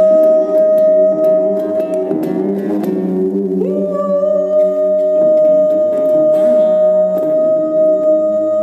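Electric guitar playing long sustained, theremin-like tones: a high note held steady over lower notes that shift and drop out. About three and a half seconds in, one note slides up in pitch to join the high one.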